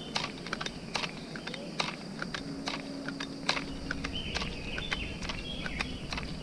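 Footsteps crunching and crackling on dry leaf litter and earth while walking, a few irregular clicks a second, over steady insect chirring.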